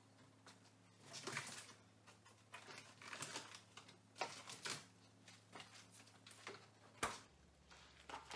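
Faint rustling and knocking of plastic-wrapped frozen meat packages being rummaged through in a refrigerator's top freezer, over a steady low hum. A sharp knock about seven seconds in, as the freezer door shuts.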